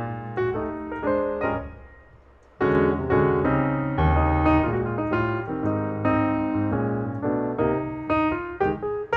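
Background piano music, a run of struck notes; it fades out about two seconds in and starts again abruptly half a second later.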